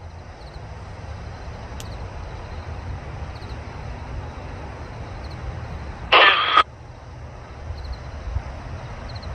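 A railroad scanner radio gives one loud half-second squelch burst about six seconds in, over a steady low rumble.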